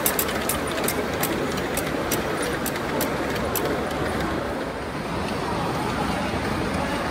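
Ride-on miniature train rolling past, its wheels clicking over the rail joints in an irregular run of clicks that stops after about three and a half seconds. A steady hum of hall noise runs underneath.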